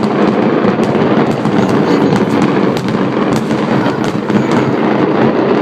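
Fireworks finale: a dense, continuous barrage of shells bursting and crackling all at once, with no gaps between the bangs.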